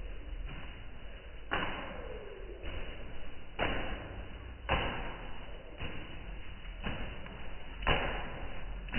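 Pigeons' wings flapping as birds take off and land close by: about half a dozen sudden whooshing flurries, roughly one a second, starting about one and a half seconds in.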